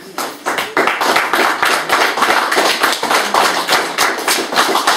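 A group of people applauding, a dense patter of claps that builds up within the first second and carries on.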